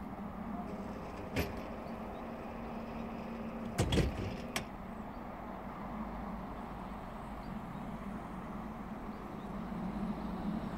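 Faint, steady hum of a GE C36-7i diesel locomotive's engine idling, with a few sharp clicks and a louder low thump about four seconds in.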